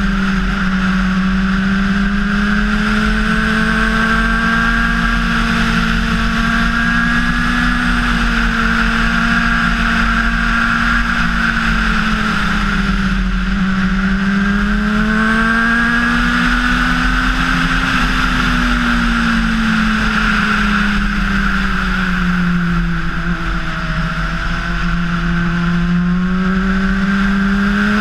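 Honda CBR600RR inline-four engine running steadily under way, its note slowly rising and falling with the throttle and dipping lowest about three-quarters of the way through, over steady wind noise.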